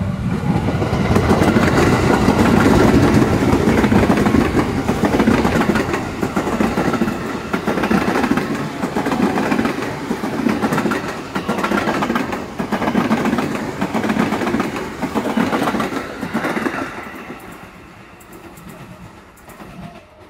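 JR 205-series electric commuter train passing close by, its wheels clacking over the rail joints in a regular beat. The sound falls away after about seventeen seconds.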